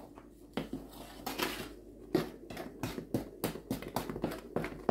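A spoon knocking and scraping against a large aluminium basin while stirring thick batter, in quick, irregular clacks that come faster in the second half.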